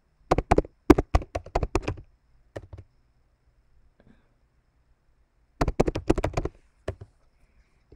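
Typing on a computer keyboard: two quick runs of keystrokes, the first starting just after the start and the second about two-thirds of the way in, with a few single key taps in the pause between.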